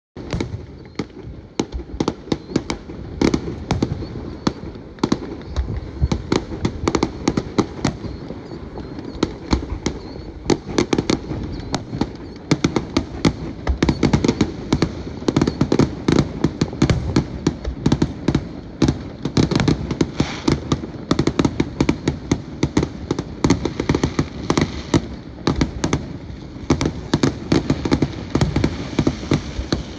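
Fireworks going off in a dense, unbroken run of sharp bangs and crackles, several a second, over a low rumbling background.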